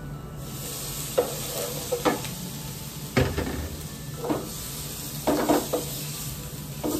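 Prawns and garlic sizzling in hot oil in a frying pan, the hiss rising about half a second in as the prawns go in. A wooden spatula knocks and scrapes against the pan about once a second while stirring.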